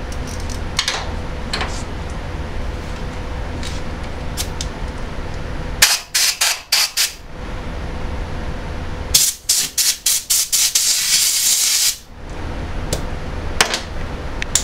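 Aerosol cutting oil spraying in short spurts, then a longer hiss of about a second and a half that stops abruptly, lubricating the tap for the thread cut in the aluminium case.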